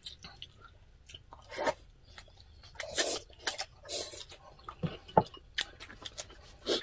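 Close-miked eating sounds of two people eating with chopsticks: chewing and mouth noises in short bursts, with sharp clicks of chopsticks against glass bowls.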